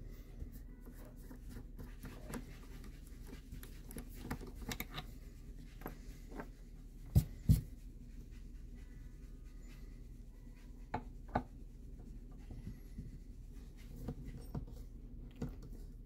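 Small handling sounds at a guitar repair bench: light scraping and scattered clicks as parts and tools are handled, with two sharp knocks about seven seconds in and two more about eleven seconds in.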